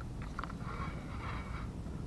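Faint water splashing as a live eel bait wriggles at the surface, over a steady low rumble.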